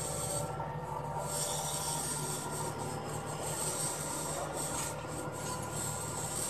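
Steady low drone of construction-site machinery at work, under a constant hiss, with no distinct knocks or clanks.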